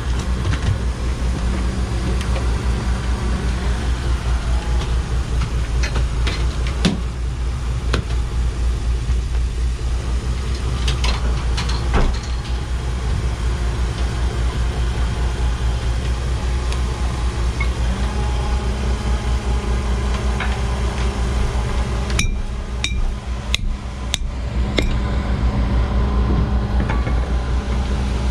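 Fishing boat's engine and deck machinery running steadily with a low, even pulse, with scattered sharp knocks and clicks from work on the deck.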